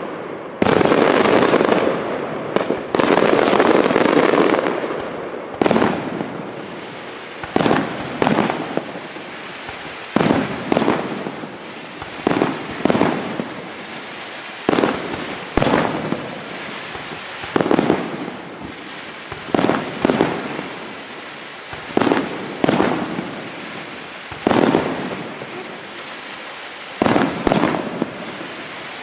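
Aerial firework shells bursting: a dense volley of bangs in the first few seconds, then single and paired bangs about every one to two seconds, each trailing off.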